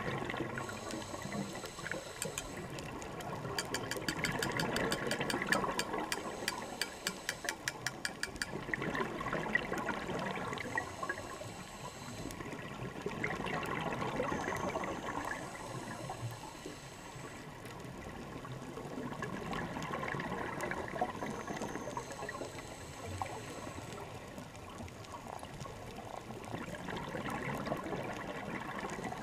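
Scuba diver breathing through a regulator underwater: slow, repeated swells of exhaled bubbles rumbling and fading between breaths, with a quick run of clicks a few seconds in.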